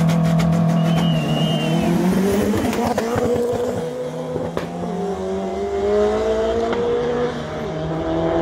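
Two drag cars, one the turbocharged VAZ 2101, launching from a standing start and accelerating hard away. The engine note climbs, falls back at each gear change and climbs again.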